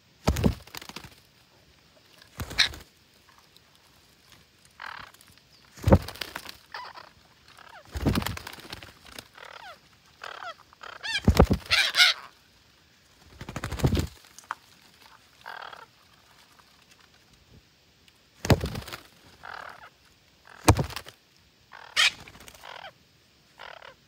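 Parakeets giving harsh squawking calls, one or two at a time, in separate outbursts every couple of seconds.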